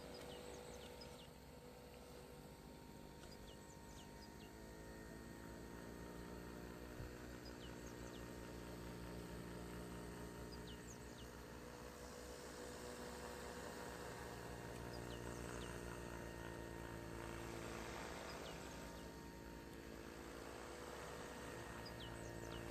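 Faint, steady buzz of a small motor, its pitch drifting slightly, over outdoor background noise, with a few short high chirps scattered through.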